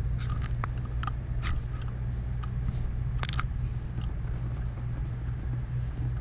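Leather satchel handbag being handled, giving a few short clicks and rustles in the first three and a half seconds, the longest just after three seconds in. A steady low hum runs underneath.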